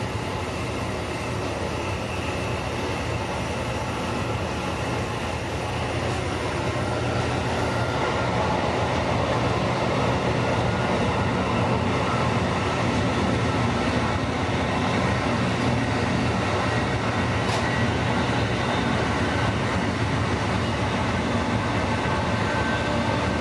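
Steady ride noise of a passenger train car under way: the rumble of wheels on rail and the car body running, growing a little louder about a third of the way in.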